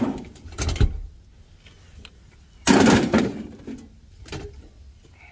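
Junk being handled and tossed in the back of a station wagon: a knock about a second in, then a loud crash and clatter a little under three seconds in, and a smaller knock shortly after.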